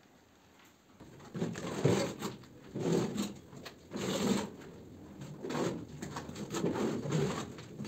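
Rough rubbing and scraping strokes, roughly one a second, starting about a second in, as wads of plaster-soaked fibre are worked against a gypsum ceiling by hand.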